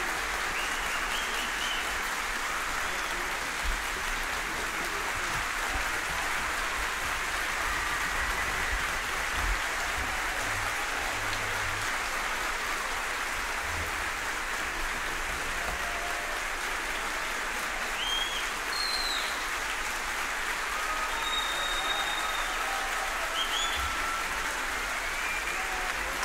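Large concert-hall audience applauding steadily, a dense even clapping that neither builds nor fades.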